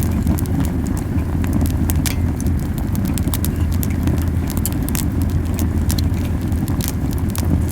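Camellia wood burning in a campfire, crackling and popping with many sharp snaps over a steady low puffing rumble of flames burning very hot.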